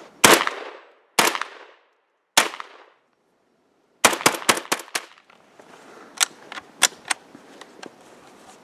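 Rifle gunfire: three single shots about a second apart, then a rapid string of about six shots, followed by several fainter shots.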